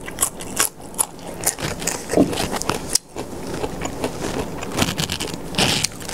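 Close-up crunching and chewing of crisp raw vegetables, with irregular sharp crunches throughout and a brief low hum about two seconds in.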